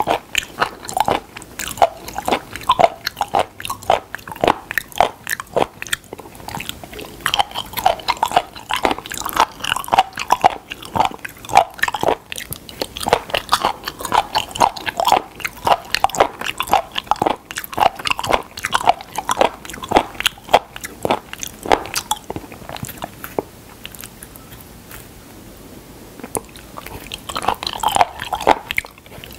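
Close-miked chewing of raw spoon worm (gaebul), with a rapid run of wet, crunchy clicks and smacks. It goes quieter about three-quarters of the way through, then the chewing starts again near the end.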